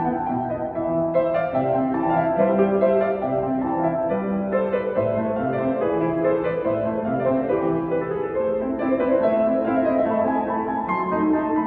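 Grand piano played solo: a continuous passage of overlapping notes, a lower line under a higher melody, with no pauses.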